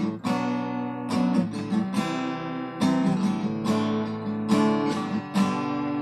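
Steel-string cutaway acoustic guitar strummed in chords, a rhythmic run of strokes roughly twice a second with each chord ringing on, picked up by a Boya BY-MM1 shotgun microphone on a smartphone.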